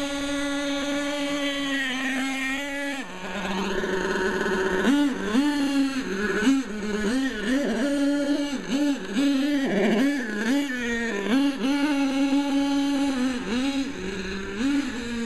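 HPI Savage RC monster truck's small nitro engine running at a steady high pitch, then dropping to a lower note about three seconds in and being revved up and down in quick repeated bursts.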